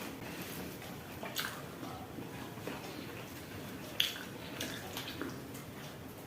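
Close-up eating sounds: wet chewing and mouth noises while eating goat meat with dhido, with a few short sharp clicks, the loudest about four seconds in.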